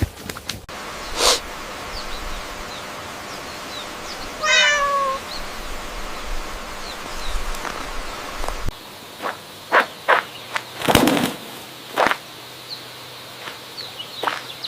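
A single wavering animal call that falls in pitch, about four and a half seconds in, over steady outdoor background noise. After an abrupt change in the background, a series of short, sharp knocks or clicks follows.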